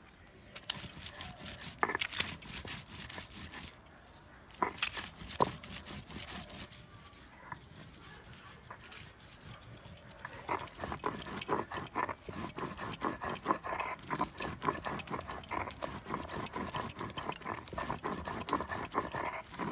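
Stone roller rubbed back and forth on a flat grinding stone (shil-nora), crushing soaked dried red chillies into a paste: a gritty scraping full of small clicks of stone on stone. It pauses briefly about four seconds in, and the strokes come quicker and more even in the second half.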